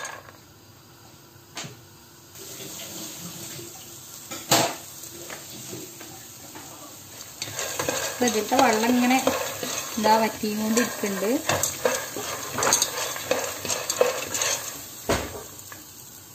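Wooden spatula stirring soaked green peas in a non-stick pan, the peas rattling and scraping on the pan with a few sharp knocks of the spatula. There is a faint sizzle as the peas' soaking water cooks off.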